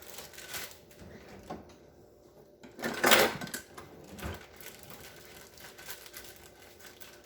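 Kitchen handling noises: scattered clicks and knocks of cookware and utensils, with one loud, short clatter about three seconds in.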